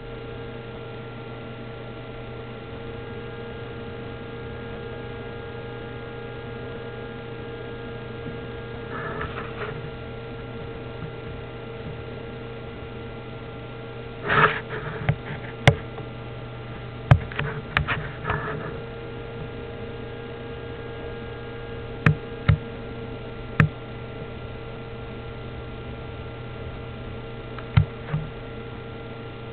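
Steady electrical mains hum, with a few short clicks and knocks scattered through the middle and later part.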